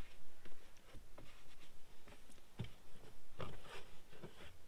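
Irregular light knocks, taps and rustling of hands cleaning inside a car cabin, with a firmer thud about two and a half seconds in.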